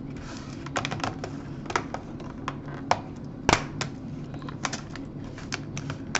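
Irregular clicks and taps of a Toshiba Portégé 660CDT laptop's plastic keyboard being handled and pressed down, with one louder click about three and a half seconds in.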